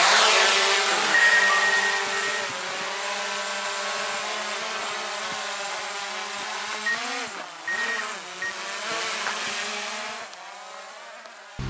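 Small folding quadcopter drone's propellers spinning up and lifting off, a steady buzzing whine. The pitch wavers about two-thirds of the way in as it manoeuvres, then the sound fades as it climbs away.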